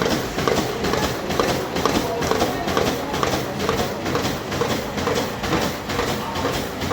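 Riso SF5030 digital duplicator printing a run of copies at high speed: a steady, rhythmic mechanical clatter, a few sheets a second, as the drum turns and paper feeds through.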